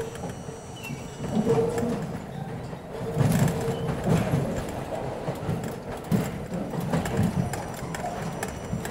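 R42 subway car rolling over switches and rail joints: its wheels clunk at irregular intervals over a steady low rumble.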